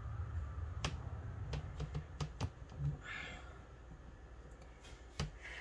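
Small plastic toy parts of a 5 Surprise My Mini Baby playset clicking and tapping as fingers fit them together: a handful of sharp clicks in the first two and a half seconds and one more near the end, with a brief rustle about three seconds in, over a faint low hum.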